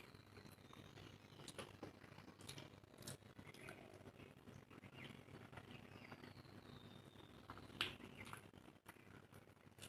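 Faint close-up eating sounds: chewing and wet mouth smacks with scattered soft clicks, the sharpest about eight seconds in.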